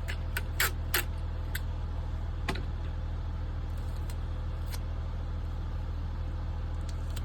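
Steady low hum of an idling engine, with a handful of sharp clicks and taps in the first couple of seconds and a few faint ones later.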